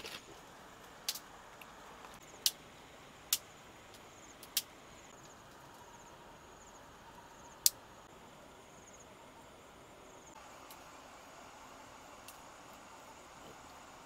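Faint outdoor ambience with insects trilling in quick high pulses, broken by five sharp clicks. The loudest click comes about eight seconds in.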